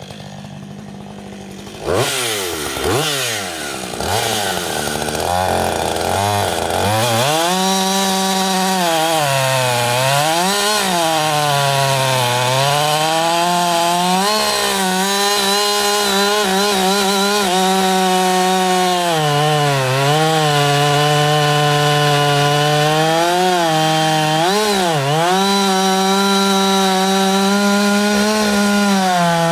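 Husqvarna 560 XP 60 cc two-stroke chainsaw runs quietly for about two seconds, then is revved up and down several times. It then runs at full throttle cutting through a large beech trunk, its pitch sagging and recovering over and over as the chain loads up in the wood.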